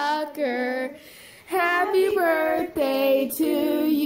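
Singing in a high voice, held notes stepping from pitch to pitch, with a short break about a second in.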